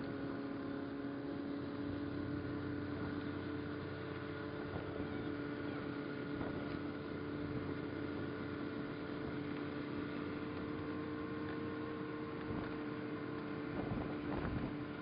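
A motor vehicle's engine running at a steady speed, a constant drone with a hiss of wind and snow underneath.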